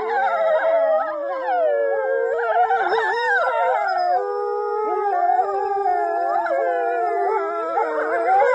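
Grey wolves howling in chorus: several long, overlapping howls that slide up and down in pitch without a break.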